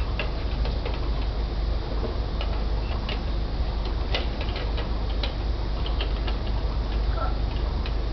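Light, irregular plastic clicks and taps from a toy toaster and its toy toast slices being handled and pressed in, over a steady low hum.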